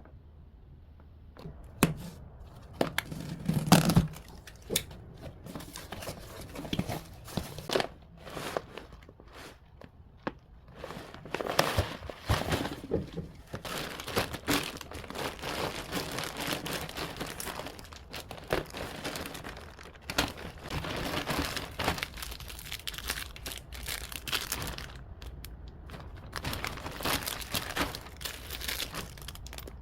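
Plastic packaging crinkling and tearing in irregular bursts as it is handled and opened, with a louder thump about four seconds in.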